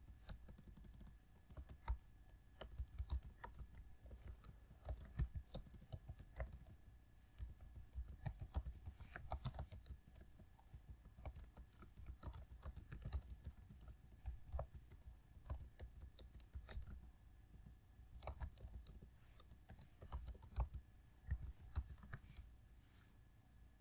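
Computer keyboard typing: rapid keystrokes in uneven runs during a timed typing-speed test at about 38 words per minute, stopping near the end.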